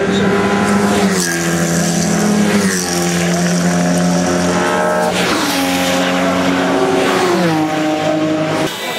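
Race cars passing the pit wall at speed one after another, each engine note dropping in pitch as it goes by, about four times.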